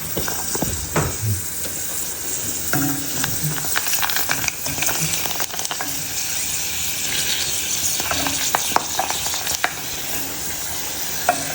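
Puris frying in hot oil: a steady sizzle with scattered clicks and scrapes of a utensil stirring them. The puris are hardly puffing up, which the cook puts down to too little heat.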